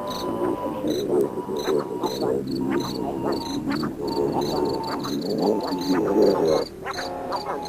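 A chorus of calling frogs and insects: a dense mass of low calls under a high chirp that repeats about three to four times a second.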